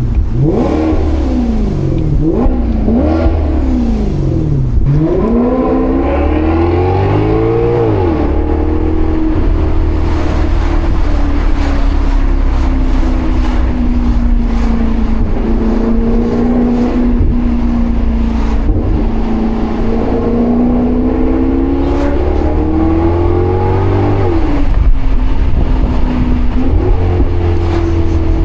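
Maserati GranCabrio's Ferrari-derived 4.7-litre V8 revving up and dropping back several times in quick succession, then pulling through a long climb in revs and settling to a steady cruise, with more rises in revs near the end.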